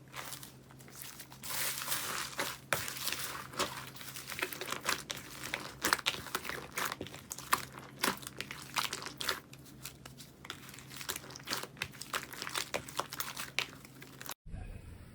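Slime being worked by hand, crackling and crinkling with many small irregular pops and clicks. It cuts off suddenly near the end.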